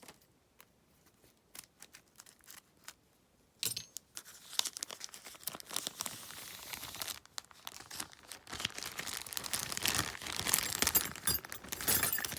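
Packaging being handled, crinkled and torn open by hand: a few faint clicks at first, then continuous crinkling and rustling from about four seconds in, loudest near the end.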